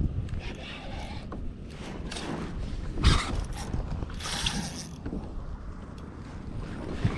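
Spinning reel being cranked, its gears whirring and clicking, with a knock about three seconds in and a few short hissy rustles.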